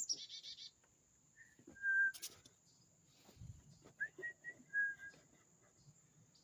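Birds calling: a fast, high, repeated chatter right at the start, then a few short, clear whistled notes: one held briefly about two seconds in, followed by a sharp click, and a quick cluster of them between four and five seconds in.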